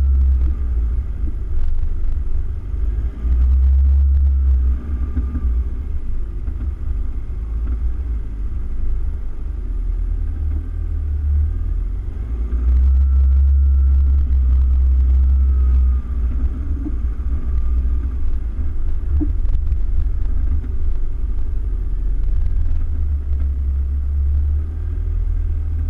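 Toyota Hilux Vigo pickup driving slowly over soft sand dunes: a heavy, steady low rumble, with a faint whine that rises and falls as the engine's revs change.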